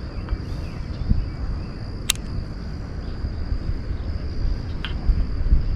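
Outdoor pond-side ambience: insects drone in a steady high buzz over a low rumble, with a sharp click about two seconds in and a fainter one near the end.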